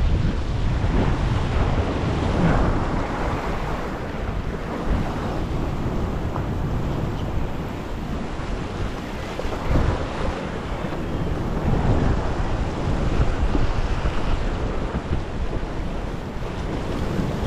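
Seawater waves washing and breaking against a rock jetty, with a steady wind rumble buffeting the microphone; the surf swells and eases every few seconds.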